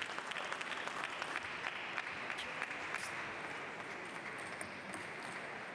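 Spectators applauding after a point in a table tennis match, the clapping thinning out and fading over the second half.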